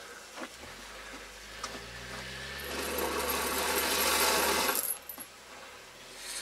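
USPS Grumman LLV mail truck stuck in deep snow, its engine revving up in rising pitch as the rear wheels spin. A loud hiss of spinning tyre and thrown snow builds for about two seconds, then cuts off suddenly near the end as the driver lets off.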